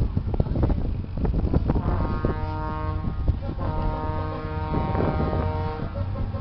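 A horn sounding a series of held notes that step from one pitch to another like a tune, starting about two seconds in. Under it, wind buffets the microphone and there is a low, steady rumble.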